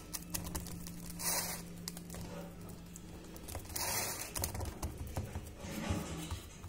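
Wet hands patting and smoothing mashed potato in an aluminium baking pan: soft squishing and scraping with small clicks, and two short hissy rushes about a second and four seconds in.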